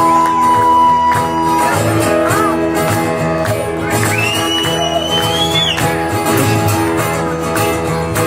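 Live funk band in an instrumental break: a blues harmonica takes the lead over a steady bass and drum groove. It scoops up into a long held note at the start, then about halfway through slides up to a higher, wavering note held for a couple of seconds.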